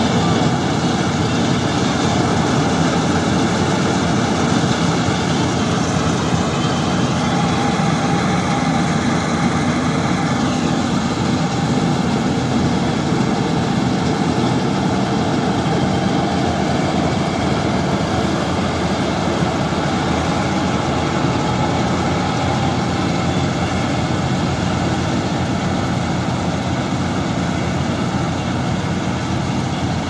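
Darshan 9000 combine harvester running steadily while harvesting: its diesel engine and threshing machinery working under load as it drives through the crop.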